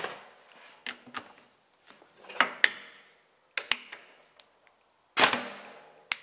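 Hand tools on a stripped-down manual gearbox: a socket and T-bar being worked on the shaft nuts, giving several sharp metallic clanks and short rattles. The loudest and longest comes about five seconds in.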